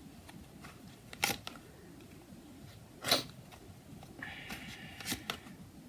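Tarot cards being handled: a few short, soft clicks and swishes, three or four over the stretch, with a faint rustle in the last couple of seconds.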